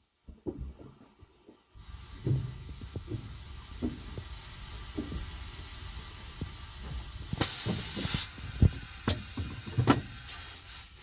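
Compressed air hissing steadily out of a freshly cut air line on a bus's pneumatic door system, starting suddenly about two seconds in, with a louder gush for about a second past the middle. Low knocks and a few sharp clicks of hands and fittings on the hose come through over it.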